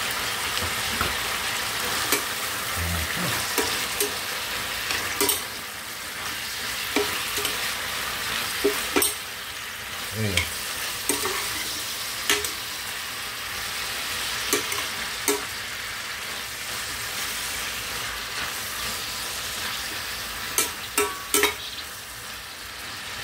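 Chicken gizzards, onion and garlic sizzling in a stainless steel pan as a metal spoon stirs them, clinking and scraping against the pan at irregular moments, with a quick run of clinks near the end.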